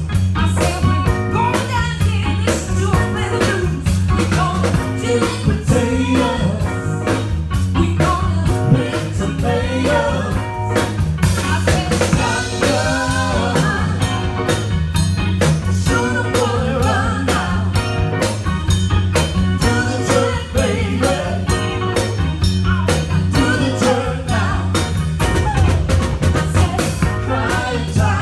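A band playing a song with singing over a steady drum beat and bass line.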